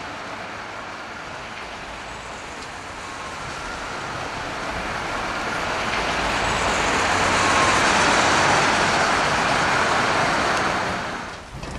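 A road vehicle passing close. Its rushing noise builds to a peak about eight seconds in, then drops away sharply near the end.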